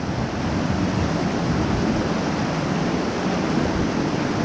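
Steady rush of flowing creek water, with wind buffeting the microphone in uneven low rumbles.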